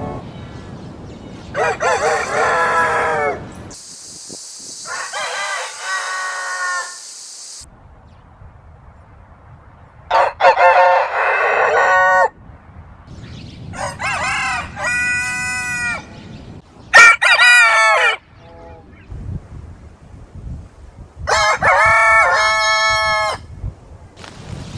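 Roosters crowing, about six separate crows of one to two and a half seconds each, differing in pitch from crow to crow. A high hiss sounds for a few seconds early on.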